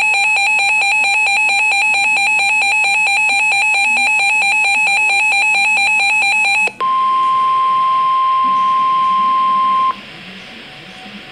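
Emergency alert tones: a loud electronic alarm pulsing rapidly on two pitches. About seven seconds in it switches abruptly to a single steady warning tone, which stops about three seconds later and leaves a faint hiss.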